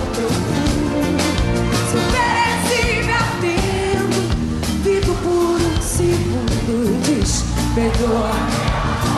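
A live band plays an upbeat Brazilian pop song with singing over a steady, driving drumbeat.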